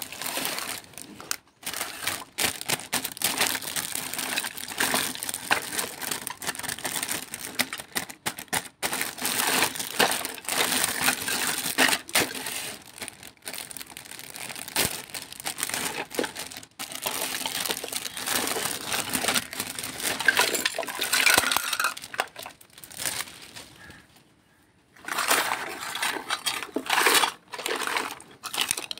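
Clear plastic wrapping crinkling and crackling as it is handled and pulled open, with small plastic toy dishes and pots clicking and knocking together. It breaks off briefly about three-quarters of the way through, then resumes.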